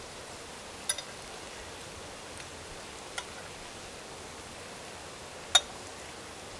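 A metal spoon clinks sharply against a cast-iron skillet a few times while barracuda steaks with onions and peppers simmer in it. There are two loud clinks, about a second in and near the end, and a fainter one in between, all over a steady faint hiss.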